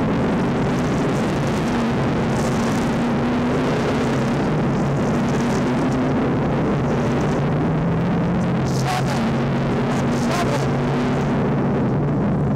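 An engine runs steadily as a low drone, with a few short scraping rustles of absorbent granules being poured and swept on the pavement.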